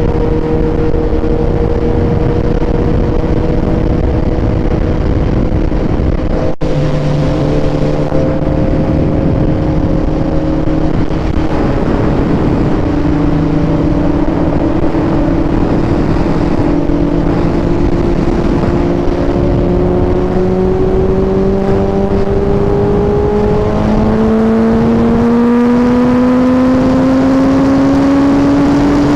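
Motorcycle engine running at a steady cruise under a rush of wind, its pitch climbing slowly over the last several seconds as it speeds up.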